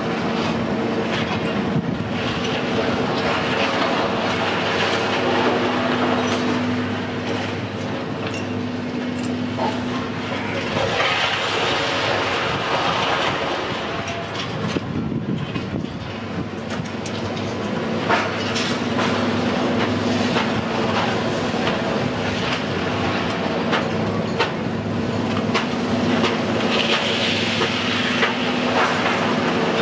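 Steady mechanical hum with a noisy rumble, broken by scattered rattles and clicks.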